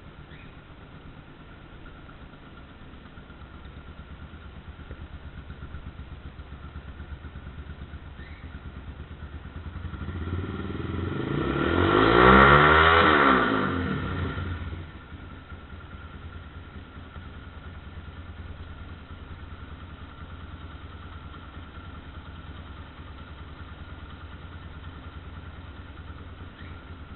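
Yamaha Factor YBR motorcycle's single-cylinder four-stroke engine idling steadily through an aftermarket aluminium sport exhaust. About ten seconds in it is revved once, climbing to a peak and dropping back to idle a few seconds later.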